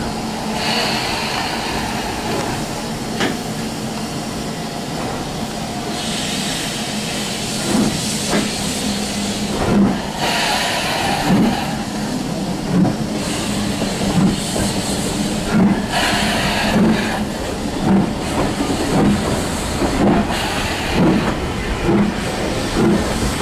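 BR Fairburn 2-6-4 tank locomotive 42085 starting away under steam: steam hissing, and from about eight seconds in, regular exhaust chuffs that come faster as the train gathers speed.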